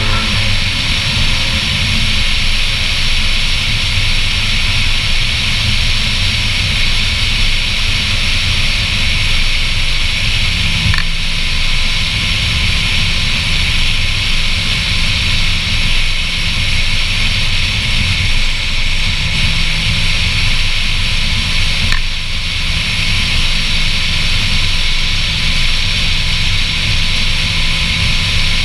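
Steady wind rush and road noise at cruising speed, as picked up by a camera on the hood of a C7 Corvette Z06, with the supercharged V8 droning low and even underneath.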